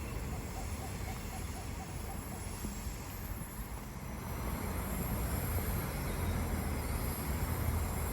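Steady low rumble of a vehicle going by, growing louder about halfway through.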